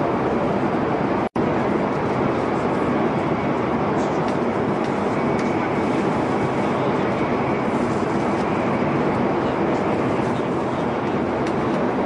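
Metro train running at speed: a steady, even rumble of rail and running noise, broken by a split-second gap of silence about a second in.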